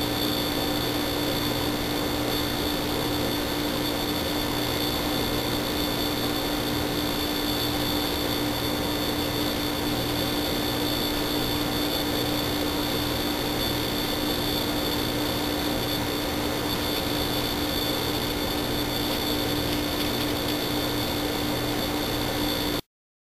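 Steady hiss with a constant high whine and a low hum, the self-noise of a wildlife trail camera's built-in microphone, with no distinct sounds standing out. It cuts off suddenly near the end.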